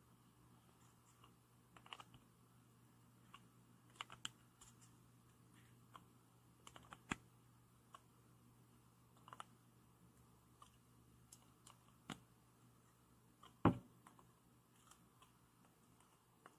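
Faint scattered clicks and small metallic ticks of Engineer Nejisaurus PZ-22 screw-extraction pliers gripping and slowly turning a stripped screw out of a flashlight's steel pocket clip, with one louder knock about fourteen seconds in.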